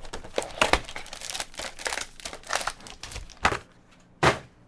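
Trading card packaging and cards being handled: irregular crinkling and rustling, with three sharper snaps, the loudest near the end.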